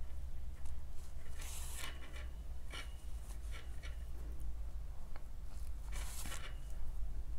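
Rustling and rubbing of crochet fabric and yarn being handled and pulled through while petals are stitched together. There are two louder rustles, about a second and a half in and near the end, and a few soft clicks, all over a steady low hum.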